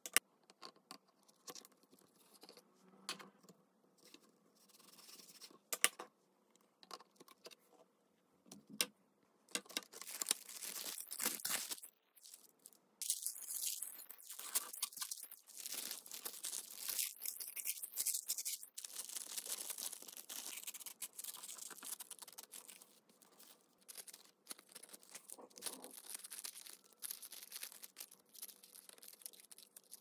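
Paper crafting by hand: a few light taps and paper rustles, then, from about ten seconds in, dense scratchy rubbing and tearing on paper with short breaks.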